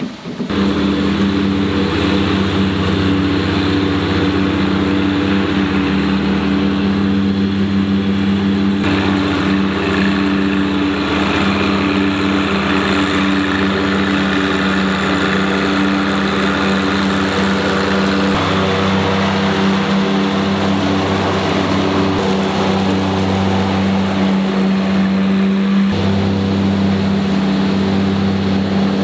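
John Deere 1025R compact tractor's three-cylinder diesel running steadily under load, with the mower deck and the bagger's collection blower engaged. It is a constant engine-and-fan hum that cuts in abruptly just after the start.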